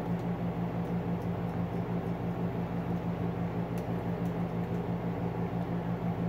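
Steady low mechanical hum of a running room appliance, unchanging throughout.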